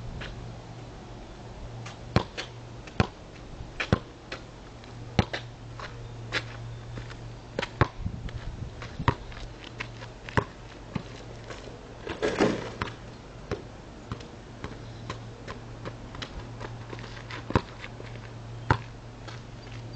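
A basketball bouncing on an asphalt driveway: sharp thuds at uneven spacing, about once a second, over a steady low hum. About halfway through comes a brief noisy rush.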